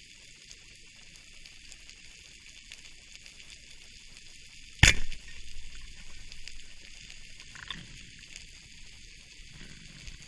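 Underwater ambience: a steady fine crackle and hiss, with one sharp, loud knock about halfway through followed by a brief low rumble.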